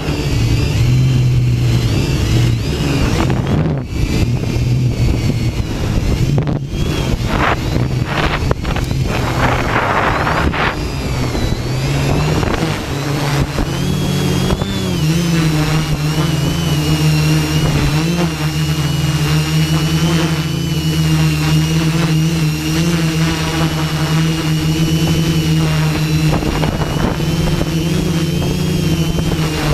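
Hexacopter's electric motors and propellers running with a steady hum and a high whine, the pitch shifting briefly about fourteen seconds in. Gusts of wind buffet the microphone in roughly the first twelve seconds.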